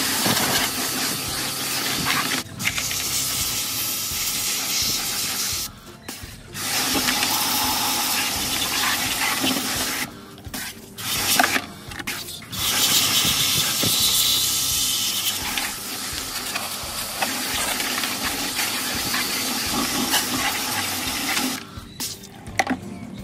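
Pressurised water spray hissing onto washing machine parts being cleaned, stopping briefly and starting again several times.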